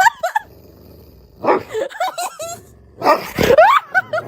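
A dog vocalizing in three quick groups of short yips and whining barks, their pitch bending up and down.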